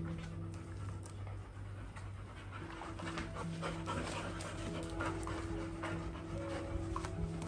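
A golden retriever panting.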